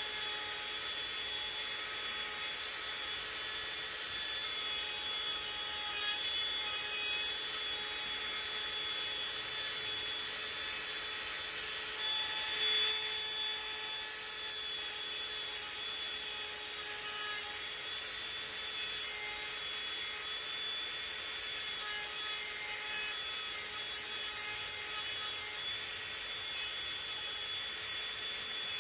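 Tulsi wood being worked with a tool to shape mala beads: a steady, unbroken working noise with a faint constant whine under it.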